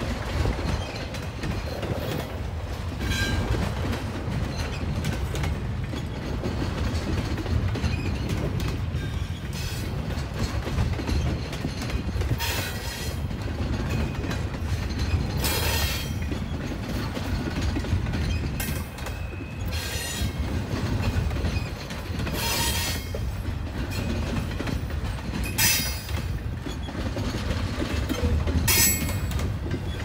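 Double-stack intermodal freight cars rolling past with a steady low rumble of wheels on rail. In the second half, short high metallic squeals from the wheels come about every three seconds.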